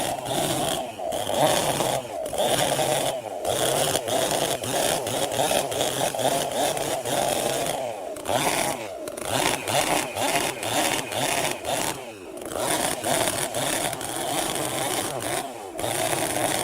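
Two-stroke chainsaw running at high revs while cutting wood. The revs drop back briefly and pick up again several times, most clearly about eight and twelve seconds in.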